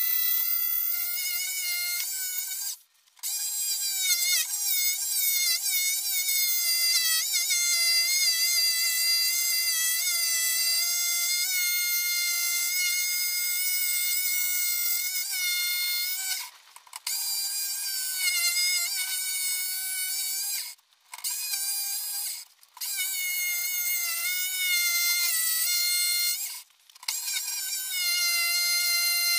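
Ryobi RJS1050 corded jigsaw cutting a curved outline in a wooden plank: a high motor whine whose pitch wavers as the blade is pushed through the wood. It stops briefly several times and starts again.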